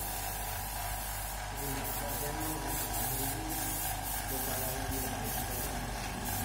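Compressed-air spray painting: a steady hiss of air with a run of short spurts of spray starting about a second and a half in.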